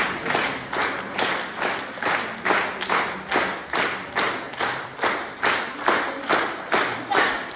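A group clapping together in a steady rhythm, about two and a half claps a second.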